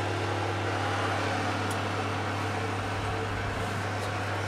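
Steady hum of an electric fan oven running with its door open, a constant low drone under an even whooshing haze.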